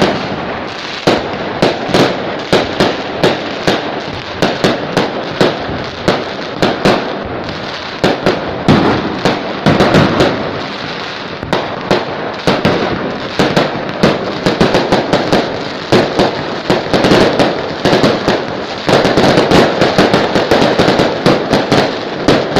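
Fireworks and firecrackers going off without a break: many sharp bangs, often several a second, over a continuous noisy din.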